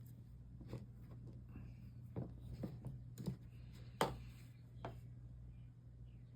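A few light clicks and taps of a soldering iron and tools against glass pieces and the work surface during stained glass soldering, the sharpest about four seconds in, over a steady low hum.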